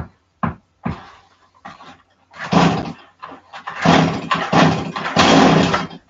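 Chainsaw being pull-started: several long, noisy pulls on the starter cord, the loudest in the second half, after a few short knocks in the first second.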